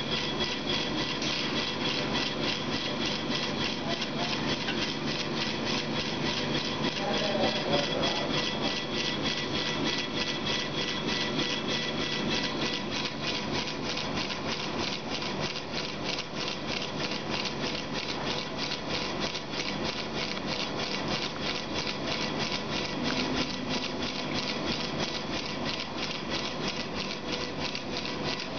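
Laser engraving machine raster-engraving a glass bottle on its rotary attachment: the head sweeps back and forth with a rapid, even ticking and a steady whine from its stepper motors.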